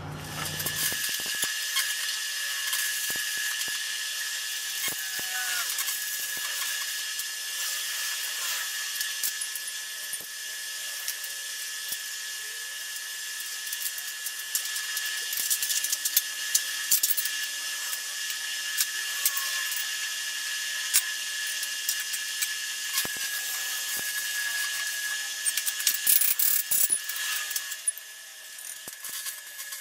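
Electric arc welding on a steel conduit frame: the arc's steady crackling hiss with a constant high whine under it, as a bracket is tacked on. The crackle drops off about two seconds before the end.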